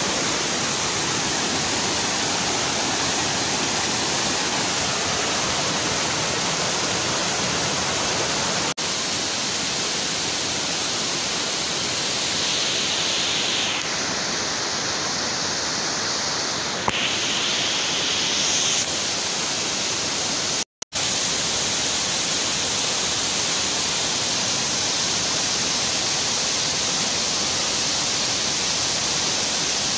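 Steady rush of a waterfall's falling water, cut off for an instant about two-thirds of the way through.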